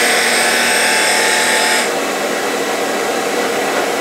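Cutter of a CNC wood lathe cutting into a spinning wooden spindle: a loud, high rasping cut that stops sharply about two seconds in, over the steady hum of the running lathe. The cut is going rough, which the owner puts down to a cutter that might be getting dull.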